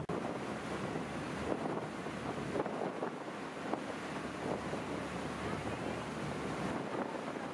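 Strong wind buffeting the microphone over the rushing water of a boat's churning wake, steady with gusts.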